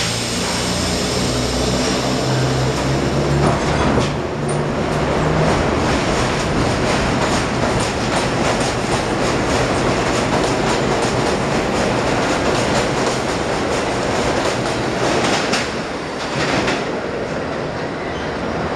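R32 subway train pulling out of the station: a low steady motor hum for the first few seconds, then fast clickety-clack of the wheels over rail joints as the cars speed past, easing off near the end as the train moves away.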